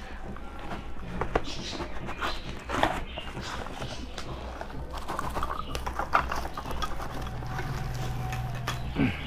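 Cardboard box and packaging being handled and opened by hand: irregular rustles, scrapes and light taps, over a steady low hum.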